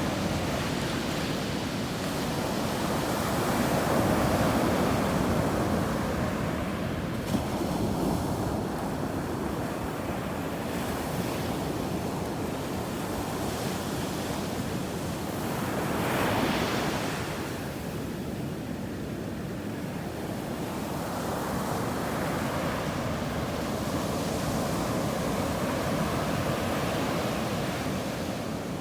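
Sea waves breaking and washing up on a beach, a continuous surf that swells and eases, with one stronger wave crashing about halfway through. Wind buffets the microphone.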